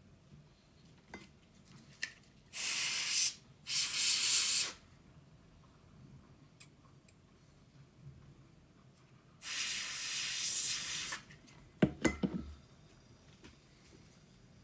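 Compressed-air duster blowing dust specks off a replacement watch glass in three hissing bursts, the last one longest, followed by a few quick sharp clicks near the end.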